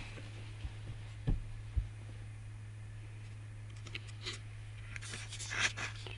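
Steady low hum inside a passenger train carriage, with a few soft knocks in the first two seconds and a short run of clicks near the end.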